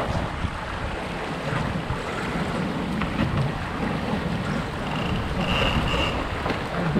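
Wind buffeting the microphone and water rushing along the hull of a Flying Scot sailboat under way, with a short high steady tone about five seconds in.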